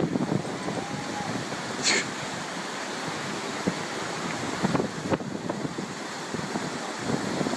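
Steady roar of wind and surf, with wind buffeting the microphone and a few brief louder gusts.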